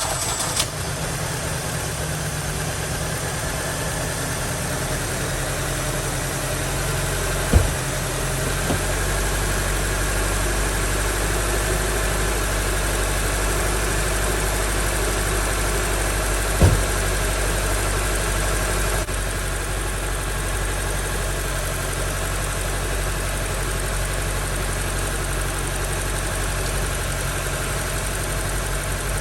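2003 Honda CR-V's four-cylinder engine idling steadily. Two short knocks sound, one about 8 seconds in and one about 17 seconds in.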